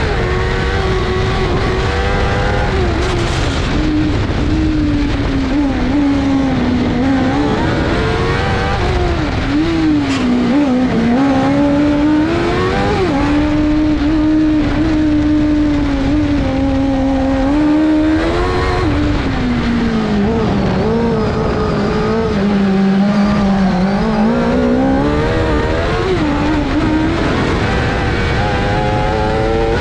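Suzuki GSX-R 1000 inline-four motorcycle engine of a kartcross buggy, heard onboard at racing speed. Its pitch rises under acceleration and falls as it slows for corners, several times over.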